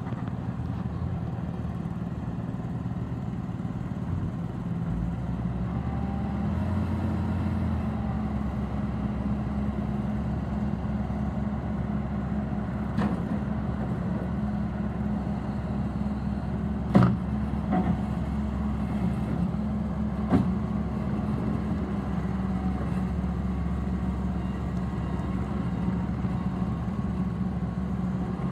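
Bobcat T450 skid steer loader's diesel engine running steadily, its pitch stepping up a few seconds in. Three or four sharp knocks stand out partway through, the loudest near the middle.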